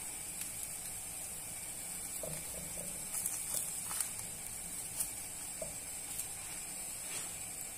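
Crêpe frying gently in a nonstick pan, a faint steady sizzle, with a few soft taps as a silicone brush spreads fat over its top.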